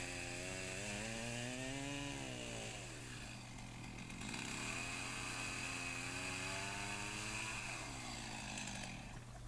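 Chainsaw cutting through a timber fence rail, its engine note sagging and rising as it bites into the wood. It drops back for a moment about three seconds in, cuts again, and eases off near the end.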